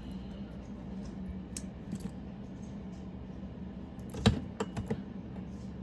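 Battery spot welder firing as nickel strip is welded onto Ni-Cd cells: a few sharp snapping clicks, the loudest about four seconds in, over a steady low hum.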